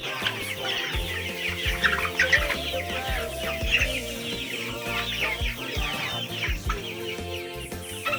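A flock of young chickens calling, many short, high, falling calls overlapping. Music plays underneath.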